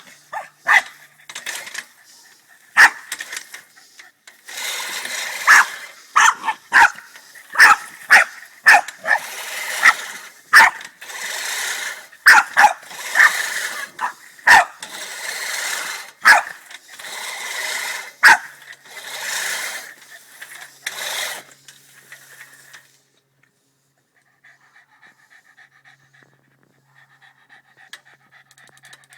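Boston terrier barking sharply and repeatedly at a push lawnmower, whose rolling blades make a rushing whir in stretches between the barks. About two-thirds through, the barking and whirring stop, and the dog's quick, faint panting is left.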